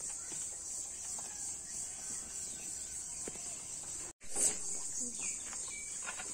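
Steady high-pitched insect chorus that breaks off for an instant about four seconds in, with a brief knock just after it resumes.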